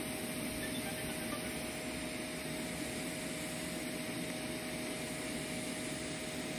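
TIG welding arc burning on steel: a steady, unbroken hiss with a thin constant tone running through it.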